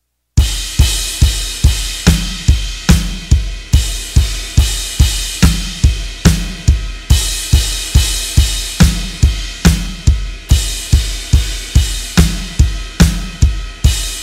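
Electronic drum kit played as a chorus groove: a steady bass drum about two and a half hits a second under cymbal and snare hits. After the last hit near the end the cymbal rings away.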